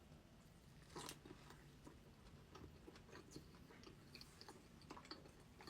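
Faint close-miked chewing: soft, wet mouth clicks and bites scattered throughout, the most distinct one about a second in.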